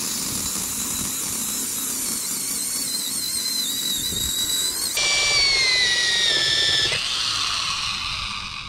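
Old corded Craftsman electric drill boring a hole down into a wooden log: a steady motor whine with the bit cutting through the wood. About five seconds in it gets louder and its pitch sags, the motor bogging under load, then it eases off near the end as the bit is drawn out.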